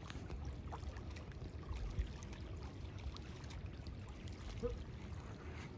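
Faint, steady rush of shallow water flowing over a concrete spillway.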